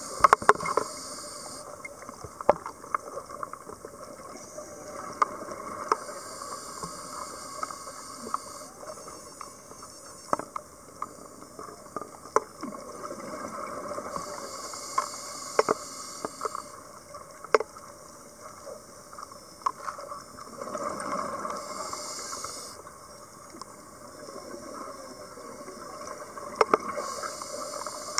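Underwater sound of a scuba diver's regulator breathing in a slow cycle: a hiss repeating about every six to seven seconds, with bubbling, over a steady watery wash and scattered sharp clicks.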